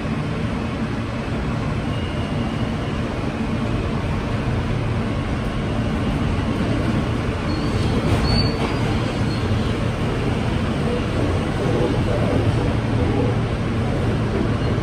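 New York City subway F train car running, heard from inside the car: a steady rumble of wheels on track that grows gradually louder, with a brief high squeal about eight seconds in.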